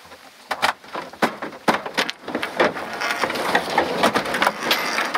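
A loaded plywood pull-out drawer in a pickup bed being pulled out on its slide: a few knocks and clicks, then a steady rattling rumble from about halfway as it runs out, with the plastic tool cases on it clattering.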